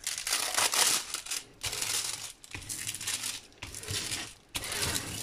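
Clear plastic protective film on a diamond painting canvas crinkling as a hand smooths and lifts it, in several bursts with brief pauses between.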